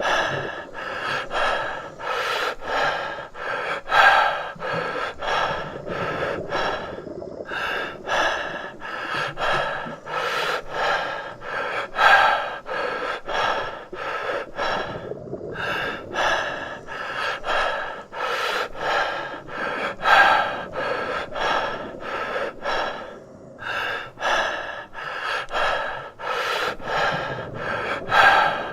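A person breathing in quick, deep breaths, about two a second, with a louder gasping breath about every eight seconds.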